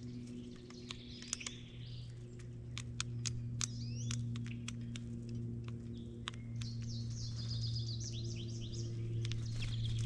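Several wild songbirds chirping and trilling, with a few sharp clicks in the first few seconds, over a steady low hum.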